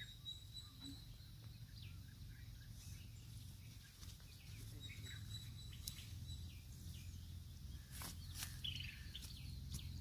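Faint outdoor ambience: a steady low rumble with scattered bird chirps and a thin, steady high tone. A few sharp clicks come near the end.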